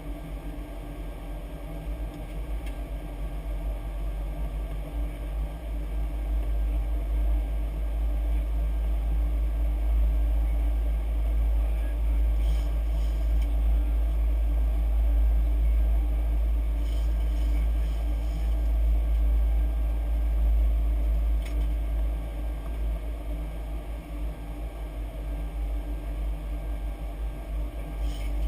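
Steady cockpit noise of a Boeing 737-800: a deep rumble of engines and airflow under a steady hum, growing somewhat louder a few seconds in, with a few faint ticks.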